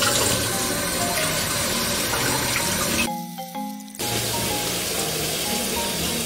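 Tap water running into a stainless-steel sink while tripe is scraped and rubbed clean under it, over background music. The water breaks off for about a second halfway through.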